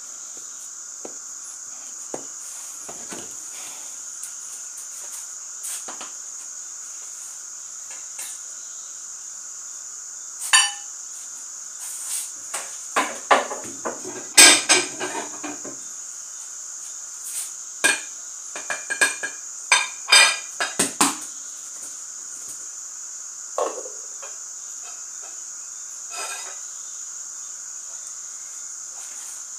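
Scattered clatter and knocks of kitchen utensils on pots and dishes, busiest in the middle stretch, over a steady high-pitched hiss.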